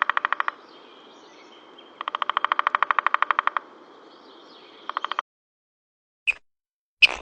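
An animal's rapid trilled call of evenly spaced pulses, each trill about a second and a half long, given twice, with a third cut short, over faint background birdsong. After a sudden stop, two short sharp clicks come near the end.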